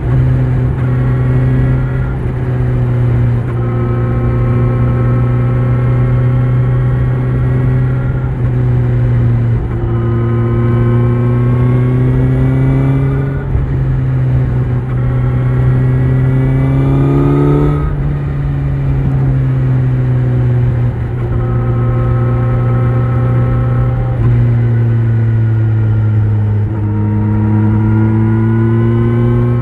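Kawasaki Z900's inline-four engine through an Akrapovic exhaust, riding along. The note climbs steadily and falls back several times, with a sharper climb and drop about 18 seconds in, over a low rumble of wind.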